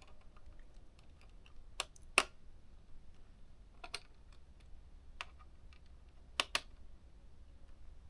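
Small sharp clicks and taps from hands and a small tool working inside an open ThinkPad T430 laptop. There are about six, irregularly spaced; the loudest comes a little over two seconds in, and two fall in quick succession near the end.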